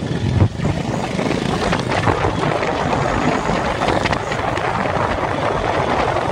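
Motorcycle riding at road speed: engine running under heavy wind rush and buffeting on the microphone, with a brief bump about half a second in.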